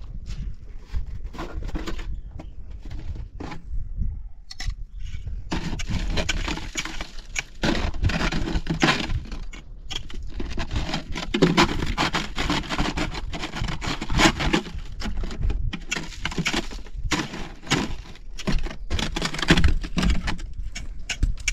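Irregular clattering, scraping and crackling: a dense run of small knocks that grows busier about five seconds in, over a low rumble.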